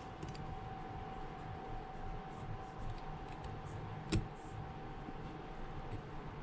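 Faint clicks and taps of small tools and phone parts being handled during reassembly, with one sharper click about four seconds in, over a steady faint hum.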